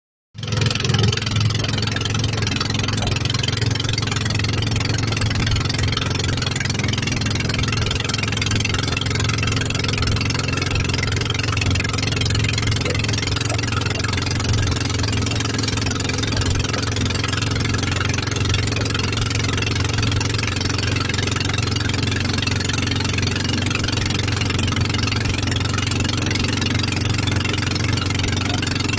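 A boat's engine running steadily underway, a constant low drone, with the hiss of water rushing past the hull.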